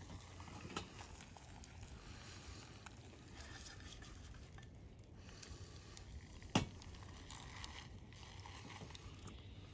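Mostly faint, with a light click near the start and one sharp knock about six and a half seconds in: a small cast iron skillet being set back down on a metal IKEA wood-burning stove while a fried egg is worked with a spatula.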